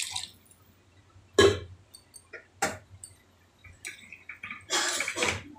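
A metal spoon knocking and scraping against a steel kadhai of simmering curry: a few separate knocks, the loudest about a second and a half in, and a longer scrape near the end.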